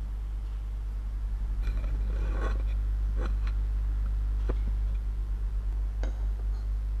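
Steady low electrical hum on the recording, with a few faint clicks and rustles between about two and six seconds in.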